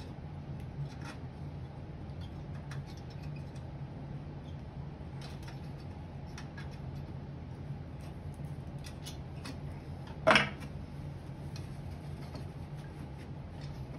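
Small metallic clicks and ticks of old steel spoke nipples being worked loose from their spokes with a hand tool, with one short, loud squeak about ten seconds in, over a steady low hum.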